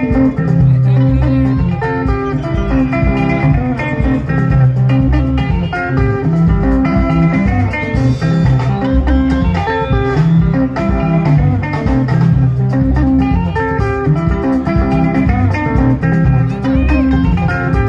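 Live sungura band playing: interlocking plucked guitar lines over a strong, steady bass line.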